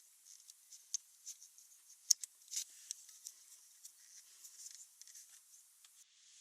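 Irregular light clicks and taps, one sharper click about two seconds in, then a steady hiss starts shortly before the end.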